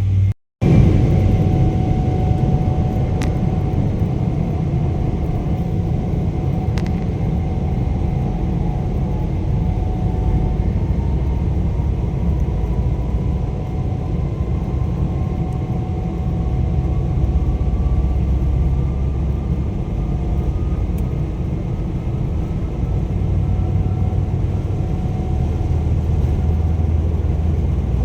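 Jet airliner cabin noise with the engines running: a steady low rumble, and a faint whine that rises slowly in pitch.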